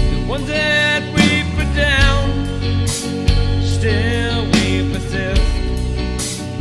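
Background music: a country-style song with guitar and a steady beat.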